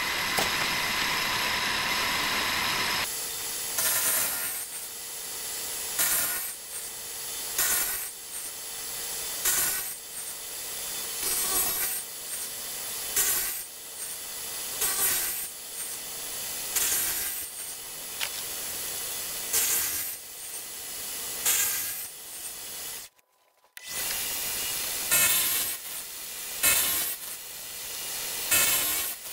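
Milling machine's wheel cutter cutting tooth spaces in a brass clock wheel blank held on a dividing head. After a few seconds of steady cutting noise, the passes come as short grinding bursts about every two seconds.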